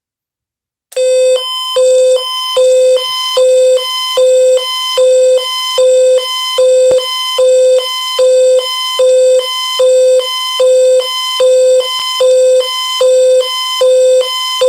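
Amber Alert attention tone relayed over AM radio: a loud, buzzy electronic tone that alternates between a low and a higher pitch a bit more than once a second. It starts abruptly about a second in.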